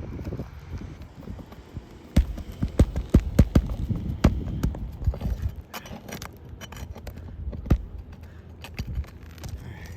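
Irregular sharp knocks and clicks of hand tools and hands working asphalt shingles on a roof, prying them loose. The knocks come thick and loud for a few seconds, then thin out to scattered taps.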